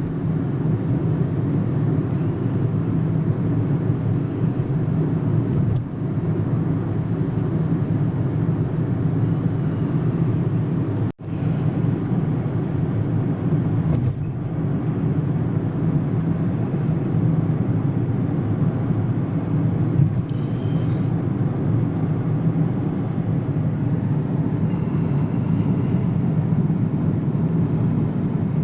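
Steady low rumble of road and engine noise inside a moving vehicle's cabin. It cuts out for an instant about eleven seconds in.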